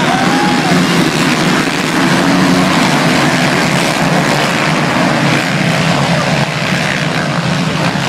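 A full pack of motocross bikes racing through the first turns just after the start, their engines revving together in a loud, dense drone. A single bike's engine rises and falls in pitch about half a second in.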